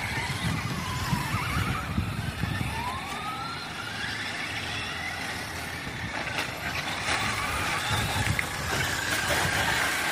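Radio-controlled cars racing on a dirt track: their motors whine in thin high tones that rise and fall in pitch as the cars speed up and slow through the turns, over a low rumble.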